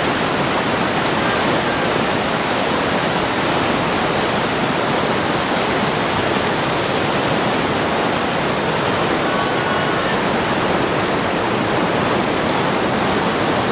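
Whitewater river rapids rushing loudly and steadily, an even noise of churning water.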